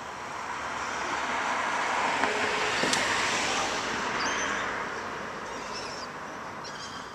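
A car driving past: its road noise swells to a peak about three seconds in and then fades away, with a brief sharp click near the loudest point.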